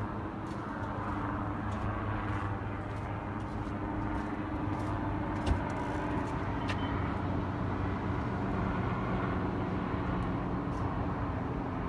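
Steady city hum of distant traffic, with a constant low droning tone underneath. There are a few small clicks, and one sharp tap about five and a half seconds in.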